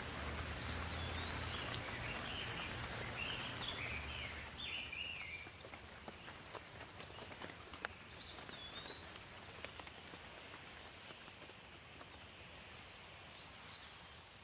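Steady rain falling, with scattered single drops ticking close by. A small bird chirps over it in a quick run of calls during the first four seconds, again about eight seconds in and once near the end, and a low rumble sits under the rain early on.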